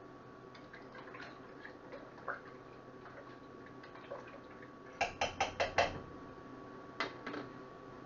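Light, sharp clicks and taps over a faint steady background: a quick run of about six about five seconds in, then two more a little later.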